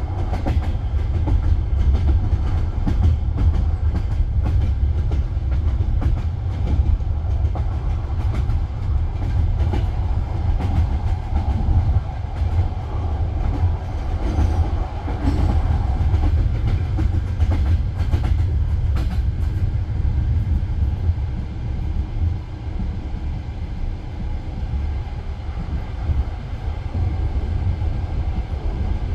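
Passenger train carriage rolling along the rails: a steady low rumble of the wheels, with clicks and knocks as they run over rail joints.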